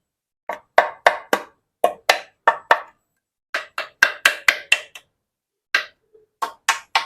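Speedone Sniper V3 rear hub ratchet clicking in a carbon bike frame. Sharp separate clicks come in short runs of about four a second with brief pauses, and the frame gives them a muffled tone.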